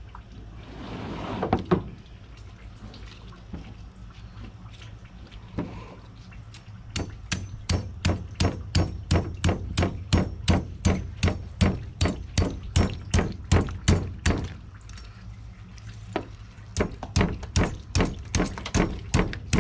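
Machete cutting into an alligator gar's hard, armored scales: a long, even run of sharp crunching knocks, about three a second, that stops for a couple of seconds and then starts again.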